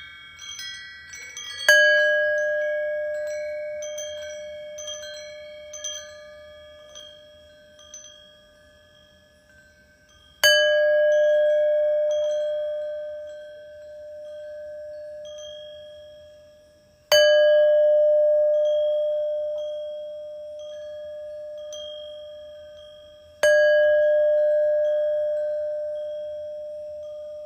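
A meditation bell struck four times, each strike ringing out and fading slowly, with light wind-chime tinkles between the strikes early on.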